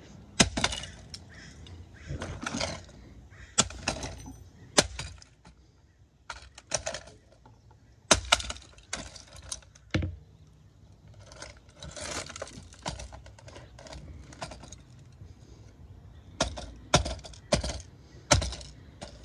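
Sharp knocks and clattering of cracked plastic as a smashed Lenoxx CDR-190 CD player radio boombox is handled, turned over and set down on concrete, a dozen or more separate knocks, several of them loud.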